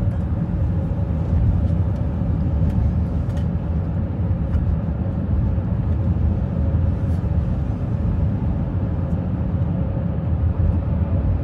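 Car cruising at highway speed, heard from inside the cabin: a steady low rumble of tyres and engine with a faint steady hum above it.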